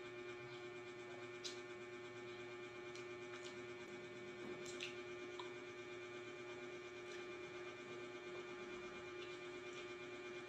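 Steady electrical hum in a quiet room, with a few faint, short clicks and taps of a spoon against a plate.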